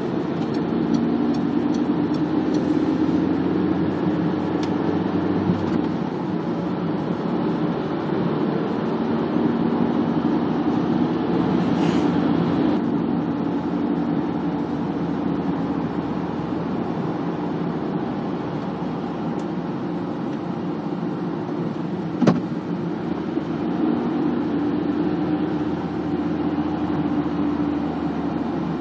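A car driving at town speed: steady engine and tyre noise, the engine hum shifting in pitch as the speed changes. A single sharp click about three-quarters of the way through.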